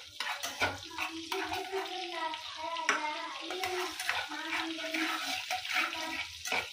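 Butter and oil sizzling in a non-stick kadhai while a steel spatula stirs and scrapes around the pan, with scattered clicks of the spatula on the pan. A voice can be heard in the background.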